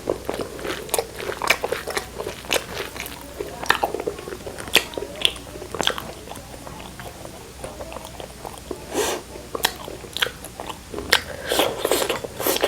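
Close-miked eating: crunchy bites and chewing, with many sharp crackling clicks, busiest about two-thirds of the way in and near the end.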